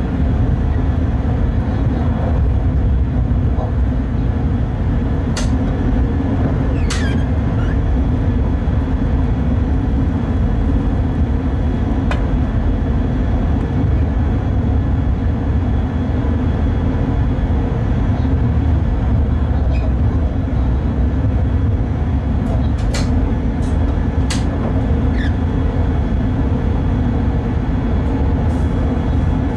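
Steady running noise heard inside the cab of a Bombardier Traxx BR186 electric locomotive hauling a freight train at line speed: a constant low rumble and hum, with a few short sharp clicks or squeaks here and there.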